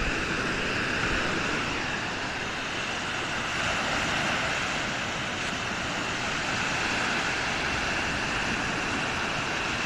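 Small lake waves breaking and washing up the sand shore, a steady rush of surf.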